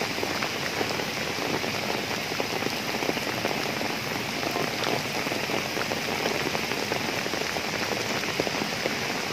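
Heavy rain pattering steadily, dense with raindrop ticks, over the rushing water of a river in flood.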